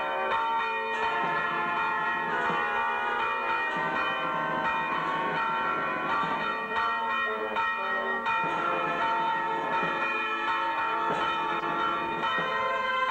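Church bells pealing continuously, many overlapping ringing tones struck again and again.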